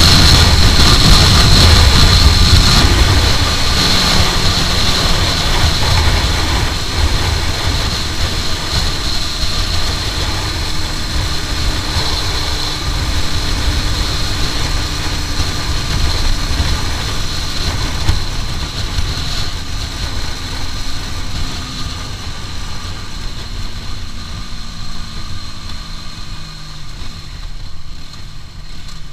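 Heavy wind rushing over the microphone of a motorcycle at speed, with the Aprilia RS4 125's single-cylinder four-stroke engine running beneath it. The whole sound grows gradually quieter, and the engine note drops in pitch near the end as the bike eases off.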